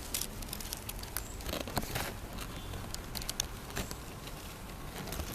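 Irregular rustling and crackling of leaves and twigs, many small sharp clicks at uneven intervals over a low rumble.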